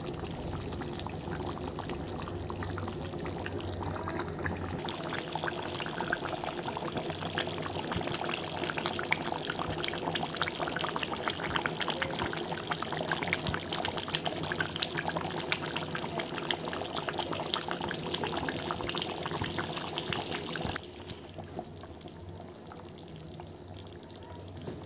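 Thick chicken curry gravy with potatoes bubbling in a pan: a steady run of small bubble pops and crackles, quieter for the last few seconds.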